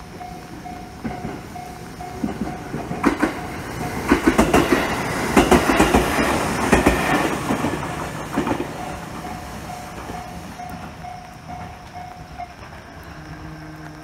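Level-crossing warning bell ringing with a steady, rapidly repeating electronic ding while a train runs over the crossing, its wheels clacking over the rail joints, loudest in the middle. The bell stops near the end as the crossing clears.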